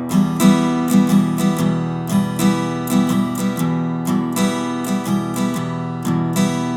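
Acoustic guitar strumming chords in a steady rhythm: the instrumental opening of a song.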